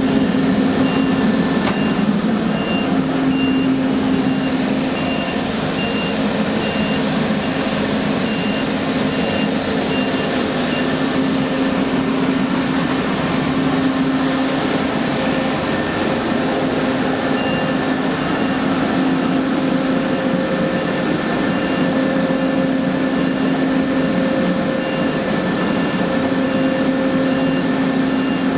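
Ingersoll Rand SSR-EP75 75 hp rotary screw air compressor running with a steady hum. Over it, a high electronic beep repeats about twice a second, like a reversing alarm, and stops for several seconds midway.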